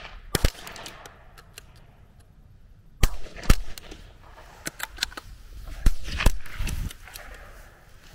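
.22 LR rifle shots: a string of sharp cracks at irregular spacing, a pair just under half a second in, then several more, some in quick succession, from about three seconds on.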